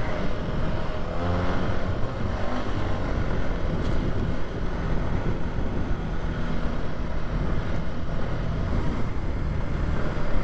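Polaris Sportsman 570 ATV engine running while riding on a dirt trail. The engine note shifts in pitch in the first couple of seconds, then runs steadily.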